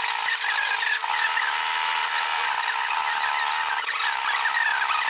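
Electric sewing machine running steadily, stitching a zigzag seam through heavy fabric, with a short break in its hum about four seconds in.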